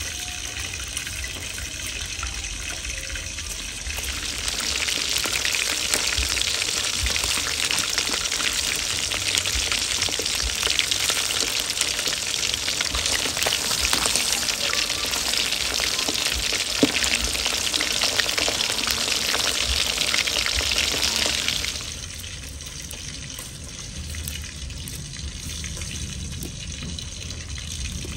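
Pieces of river eel frying in hot oil: a loud, dense crackling sizzle that starts about four seconds in and cuts off sharply about three-quarters of the way through. A quieter steady hiss comes before and after it.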